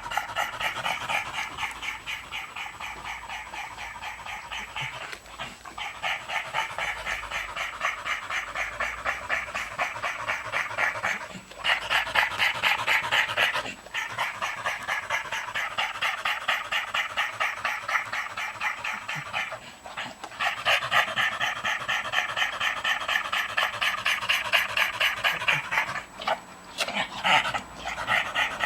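A dog panting fast and hard after a walk, a wheezing rasp on every quick breath, breaking off briefly now and then before starting again.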